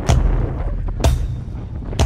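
Drum beat with a heavy hit about once a second, each with a deep low thump under it.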